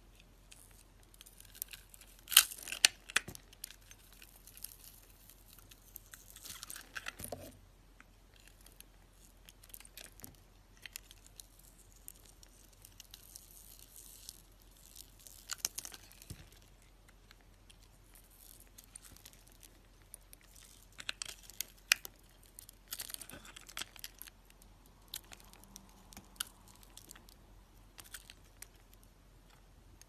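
A snap-off utility knife blade cutting and scraping through a bar of soap coated in small beads, giving irregular crisp crunching and scraping strokes with short pauses between. A few sharp cuts stand out, the loudest about two seconds in.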